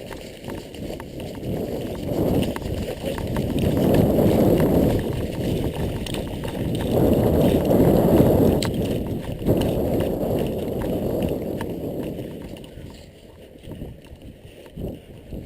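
Low rumbling wind and handling noise on a body-worn camera's microphone while the wearer moves quickly, with rhythmic footfalls. It swells and fades, loudest in the middle, and eases off near the end.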